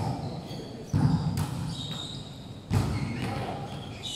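Volleyball impacts on the wooden court: three sharp thuds over about three seconds, each echoing through the large sports hall.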